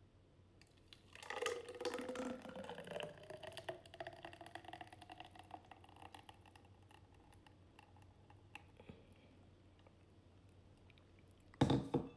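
Liquid being poured into a container, crackling with small splashes, its pitch rising slowly as the container fills, then fading. A short clatter near the end.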